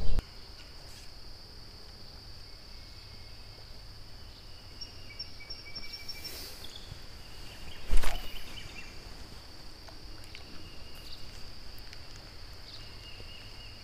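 Steady high-pitched drone of insects along the creek, with faint chirps now and then. A brief hiss about six seconds in and a single sharp knock about eight seconds in, the loudest moment, from the angler's fishing tackle.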